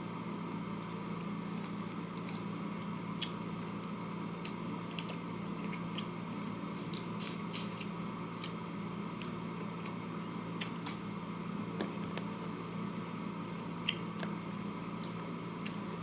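A person eating prawns close to the microphone: scattered small wet clicks and smacks of chewing over a steady room hum, with two louder sharp sounds about seven seconds in.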